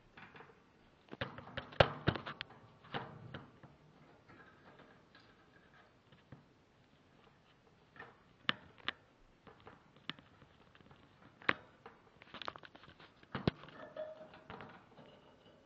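Hamster scrabbling about its cage, rustling in the bedding with scattered sharp clicks and rattles against the wire bars, in several short flurries.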